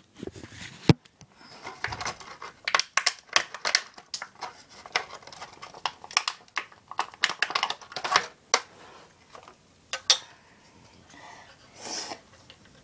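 Irregular clicks, taps and crinkles of a clear plastic blister package and small plastic parts being handled, as a model plane's display stand is taken out and put together.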